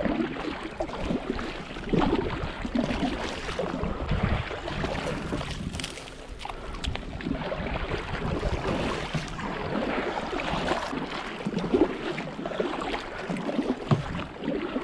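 A small boat being paddled through water: paddle strokes dipping and splashing, with irregular knocks against the hull.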